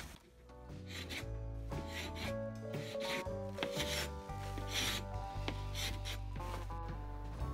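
Hand paint scraper rasping antifouling paint off a fibreglass boat hull in short repeated strokes, about one a second, over background music.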